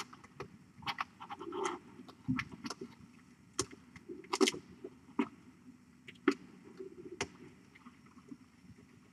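Scattered light clicks and soft scuffing and rustling, irregular and spaced out, as kittens move about and play on a fleece blanket.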